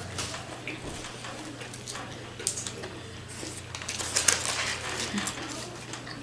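Close-up eating sounds: scattered clicks and crinkles of paper sandwich wrappers being handled and of chewing, over a faint low hum.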